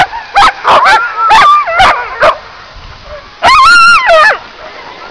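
Sled dogs barking and yelping: a quick run of short, high yelps in the first couple of seconds, then one longer drawn-out yowl about three and a half seconds in.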